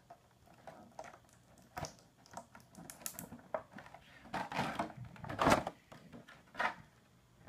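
Clear plastic blister packaging being handled, with irregular light clicks and crackles that are loudest about five and a half seconds in.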